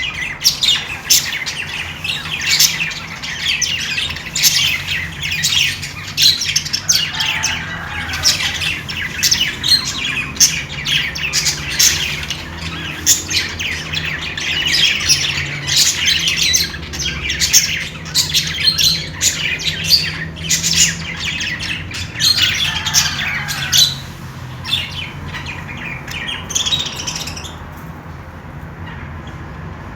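Budgerigars chirping and chattering in a dense, rapid stream of short calls and squawks, thinning out over the last few seconds, over a faint low steady hum.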